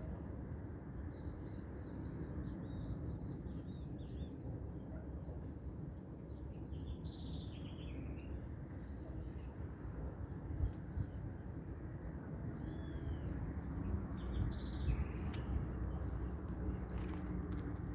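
Dawn chorus of many birds: short chirps and whistles from several birds overlapping throughout, over a steady low background noise.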